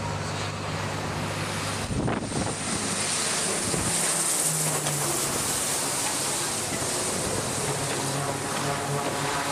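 E-2 Hawkeye's twin turboprop engines running as it comes in low over the carrier's flight deck, a low propeller hum under a high thin whine that rises a couple of seconds in. Heavy wind noise on the microphone throughout.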